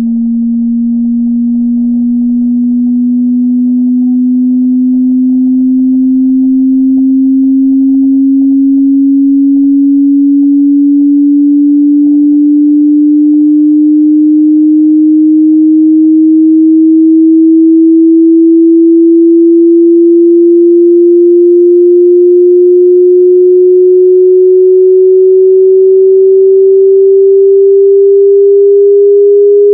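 Pure sine test tone of a hearing-test frequency sweep: a single low tone rising very slowly and evenly in pitch, growing a little louder over the first half.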